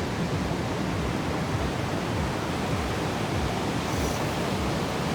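Steady rushing noise of ocean surf and wind, deepest in the low end, with no distinct events.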